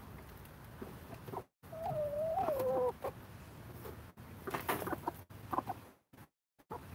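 Chickens clucking: one long, wavering call about two seconds in, then a run of short clucks. The sound cuts out briefly a couple of times.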